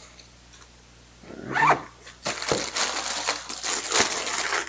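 Plastic packaging crinkling and crackling as a microfiber towel is stuffed back into its clear plastic bag, starting about two seconds in and going on densely, with a brief high-pitched sound just before it.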